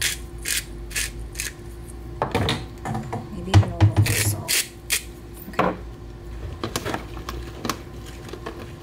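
Hand-twisted pepper grinder grinding peppercorns: a run of short rasping strokes, about two a second, with a few louder handling knocks in the middle.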